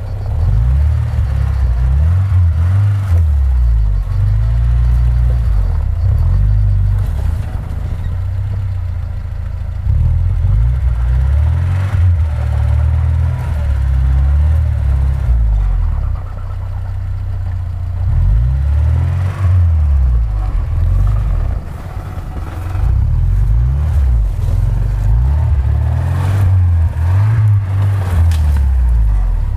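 UAZ Patriot's engine revving up and down again and again as it claws up a steep snowy slope on 33-inch all-terrain tyres. Two wheels are spinning without grip because it has no differential locks.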